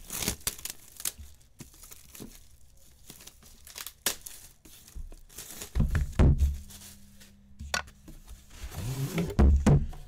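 Plastic wrap being torn and crinkled off a sealed box of sports cards, with scattered crackles and rustling. There are low thuds about six seconds in and again near the end as the box is opened and handled.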